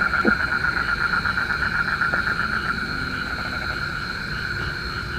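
Night chorus of frogs and insects in a rice paddy: a fast pulsing trill over a steady high-pitched insect drone. The pulsing evens out about halfway through.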